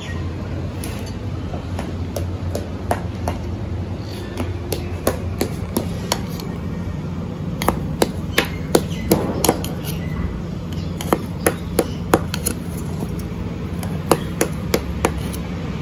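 Knife cutting a steamed green gram (moong dal) cake into pieces in a stainless steel plate, the blade striking the steel bottom in a run of sharp, irregular clicks that come thicker and faster in the second half.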